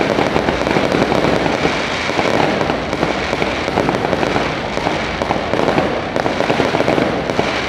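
Aerial fireworks going off: a dense, continuous run of rapid pops and crackles from bursting shells.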